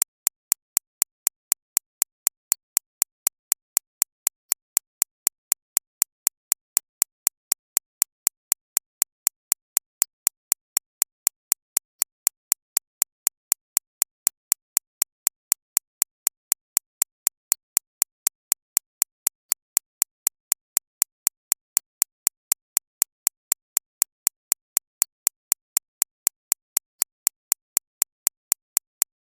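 Synthesised recreation of a shockwave therapy (ESWT) machine's impact pulses: a steady train of sharp, evenly spaced clicks, about three a second, with most of their energy high up, tuned for tinnitus masking.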